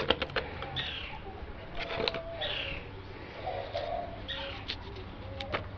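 Small clicks and knocks of a knife and lime against a plastic bottle as limes are cut and squeezed into it, a cluster at the start, one about two seconds in and one near the end. Birds call in the background with several short downward chirps.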